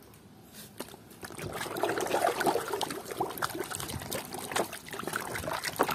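Water trickling and splashing in a tub as a plastic toy is rinsed and rubbed clean by hand, starting about a second and a half in.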